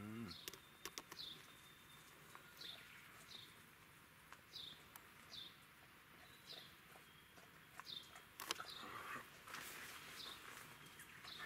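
Faint bird call: a short falling chirp repeated about once a second, with a few soft clicks.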